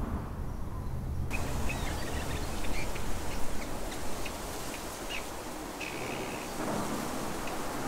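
A low traffic rumble cuts off about a second in and gives way to a steady rushing outdoor noise, over which small birds chirp in quick, short calls, with a couple of longer calls near the end.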